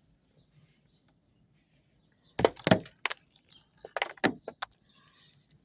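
Thick glaze ice cracking and snapping as a piece is broken off by hand: a quick run of sharp cracks starting a little before halfway through.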